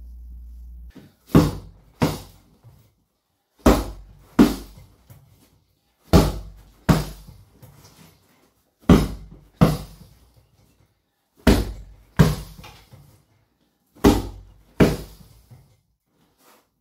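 Fist strikes on a hanging heavy bag, thrown as double punches: six pairs of thuds, the two hits of each pair under a second apart, each hit trailing off briefly.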